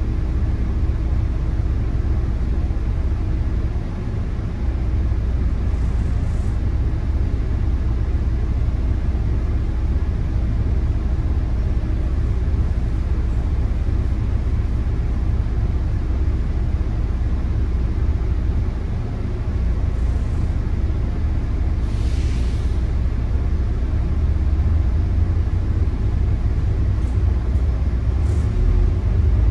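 Volvo B9TL double-decker bus's 9-litre diesel engine idling steadily, a low rumble with a steady hum, heard from inside the bus. A brief hiss about two-thirds of the way through.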